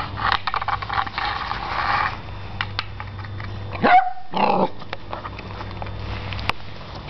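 Beagle puppy growling, then two quick barks about four seconds in, the loudest sounds here, with scattered clicks and scuffs in between.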